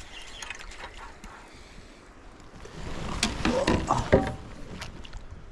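Kayak paddling: the paddle splashing through the water, busiest about three seconds in, with a sharp knock about four seconds in.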